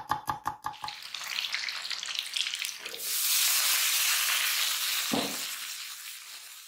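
Food sizzling in hot oil in a wok: the frying hiss swells up over the first few seconds and fades out near the end. It opens with about a second of rapid, even ticks, and there is one dull thump about five seconds in.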